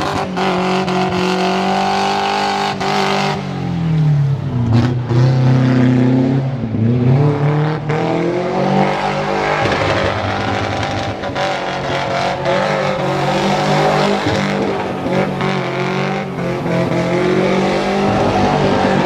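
A car doing a burnout: its engine held at high revs while the rear wheels spin in clouds of tyre smoke. The revs sag about four seconds in and climb back a few seconds later.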